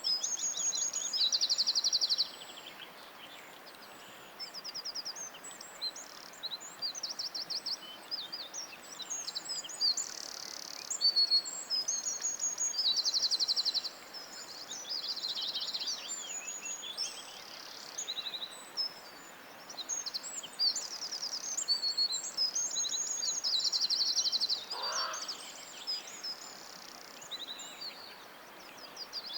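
Several songbirds singing at once: a dense chorus of high chirps and rapid trills, one phrase after another. One lower call breaks in briefly near the end.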